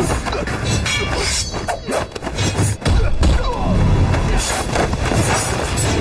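Dramatic score under martial-arts fight sound effects: a quick run of crashing impacts, then a heavy thud just before the three-second mark.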